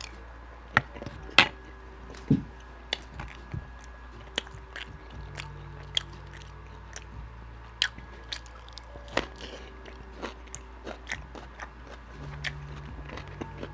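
A person chewing food close to the microphone, with wet smacks and sharp mouth clicks coming irregularly, several a second at times.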